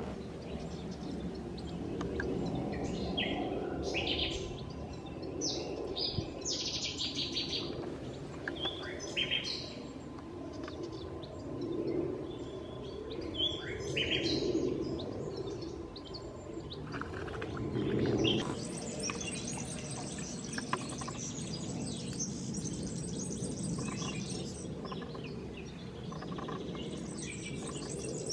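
Wild birds chirping and singing in short scattered phrases. About two-thirds of the way in, a steady high-pitched insect buzz sets in and carries on, with a brief break near the end.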